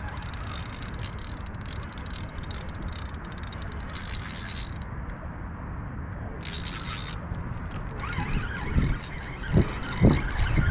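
Wind rumbling steadily on the microphone, with faint scattered clicking, and a few louder knocks in the last couple of seconds.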